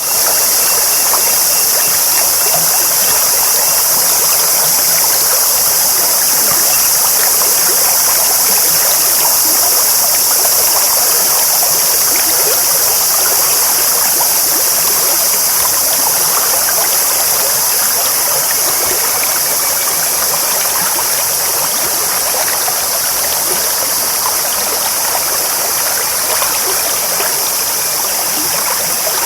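Clear stream babbling steadily.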